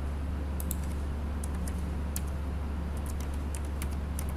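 Computer keyboard keys clicking in an irregular run of keystrokes as a name is typed, over a steady low electrical hum.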